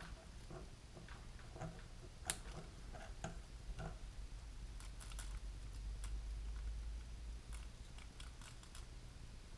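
Scattered small plastic clicks and taps from a Blade 230 S micro helicopter's rotor head as the control links are pressed onto the new swashplate's balls, with one sharp snap about two seconds in.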